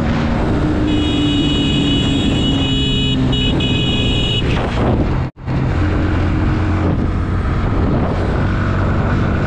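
Bajaj Pulsar NS160's single-cylinder engine running steadily at high road speed, heard from the rider's seat with a thin high whine over it for the first few seconds. A little past halfway the sound cuts out for an instant, then the engine runs on at a lower pitch as the bike slows.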